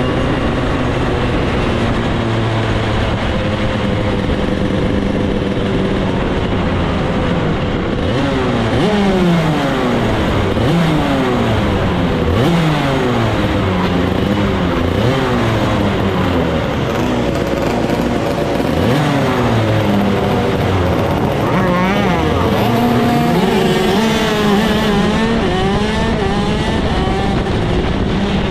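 Shifter kart's two-stroke engine heard from on board, running steadily at low revs. From about eight seconds in it gives a string of throttle blips, the revs rising and falling every second or two, with other karts' engines revving close by. Near the end the revs climb higher.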